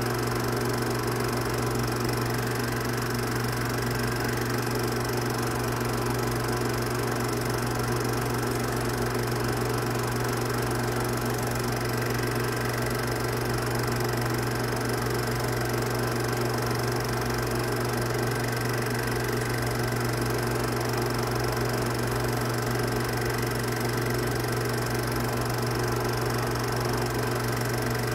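Film projector running: a steady, unchanging motor hum with hiss.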